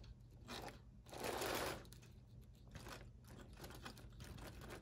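Faint scraping from a vintage model steam locomotive being nudged by hand along the track, with a brief half-second whir about a second in as its motor catches and drops out again. The owner puts this down to a short or a connection that keeps cutting out.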